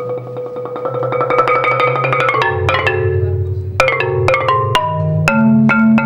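Solo marimba played with mallets: a fast roll on held notes, then separate struck chords and quicker notes over ringing low notes.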